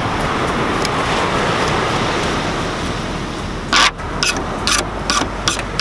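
Steady rush of breaking surf and wind on the beach. About four seconds in comes a short loud rustle, then a few sharp clicks and knocks from handling the fish and cutting board on the table.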